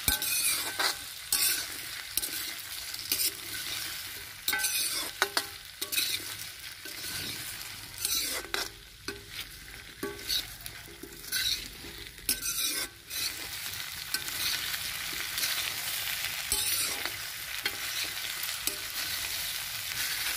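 Sliced taro root (arbi) sizzling in hot oil in an iron kadhai, stir-fried with a steel spoon that scrapes and knocks against the pan at irregular moments.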